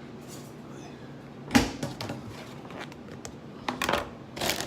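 Kitchen things being handled while getting ready to carve a rotisserie chicken: a sharp thump about one and a half seconds in, then a scatter of lighter clicks and knocks.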